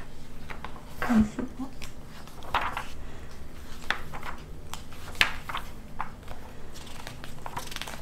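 Pencil scratching on a paper character sheet, with small irregular handling clicks on a table. A brief murmured voice comes about a second in.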